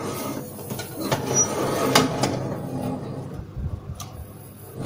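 A baking tray being slid into an oven along its metal rack: a rumbling metallic scrape with a few sharp knocks as it goes in.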